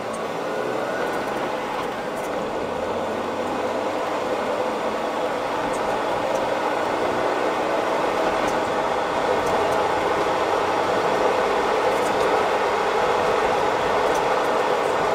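Road and tyre rumble heard from the cargo area of a moving BMW E39 Touring, a steady noise that slowly grows louder, with a few faint ticks.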